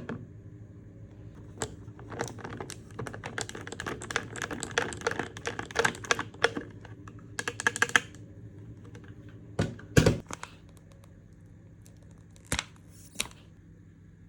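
Rapid run of small clicks and taps from objects being handled, then a few louder separate knocks, over a faint steady hum.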